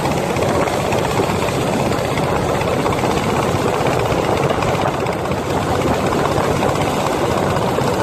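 Long-tail motorboat's engine running steadily at speed, with water rushing and splashing past the hull.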